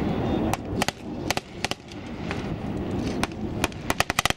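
Small-arms gunfire: scattered single shots and pairs, then a rapid machine-gun burst near the end, over a steady low rumble.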